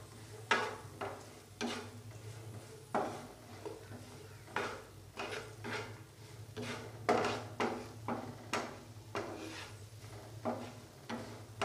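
A wooden spatula scraping and knocking against a non-stick frying pan while stirring diced capsicum, carrot and corn. The strokes come unevenly, about two a second.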